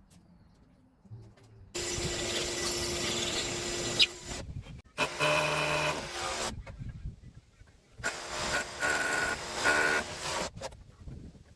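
Power tool run in several bursts of one to two seconds on timber framing, with short pauses between, and a sharp knock about four seconds in.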